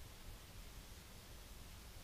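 Near silence: the steady hiss of a trail camera's microphone, with a faint low rumble underneath.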